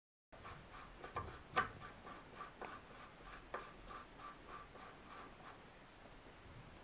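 Faint metallic clicking and ticking as a flash hider is threaded by hand onto an AR-15 barrel's muzzle over a crush washer. The clicks come in a loose run, the loudest about one and a half seconds in, and die away after about five seconds.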